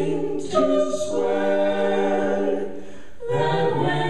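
A small a cappella vocal ensemble singing a ballad in close harmony, holding sustained chords. The chord changes about half a second in, and again just after three seconds following a brief softer moment.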